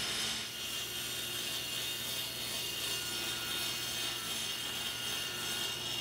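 Table saw running steadily as a strip of half-inch Baltic birch plywood is fed along the fence, the blade taking a light trim of about a 64th of an inch off its edge.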